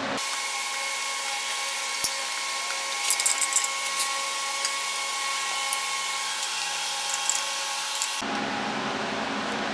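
Flathead screwdriver turning a brass threaded insert nut into wood: a few short metal clicks and scrapes, thickest about three seconds in, over a steady hiss with a thin high hum.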